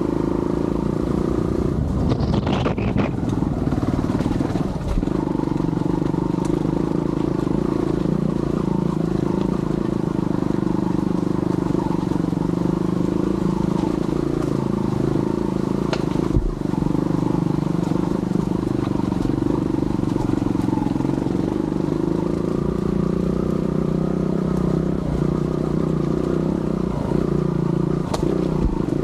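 Yamaha TY-S 125F trials motorcycle's four-stroke single-cylinder engine running steadily as it climbs a rough, washed-out dirt road, with occasional knocks and clatter, the sharpest about sixteen seconds in.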